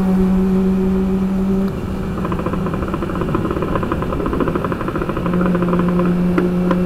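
Kawasaki ZX-25R inline-four motorcycle engine running at a steady cruising pitch while riding, its note dropping back for a few seconds in the middle and then holding steady again, over wind rush.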